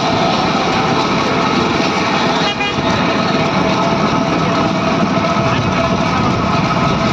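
Continuous road noise from a moving bullock cart in traffic: the cart's wheels rumbling on tarmac as cars and motorbikes pass, with a steady tone running through it.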